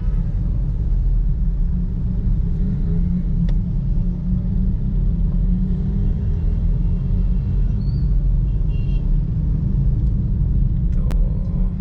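Steady low rumble inside a Kia Picanto's cabin while it drives slowly in city traffic: engine and road noise as heard from inside the car. Faint clicks about three and a half seconds in and near the end.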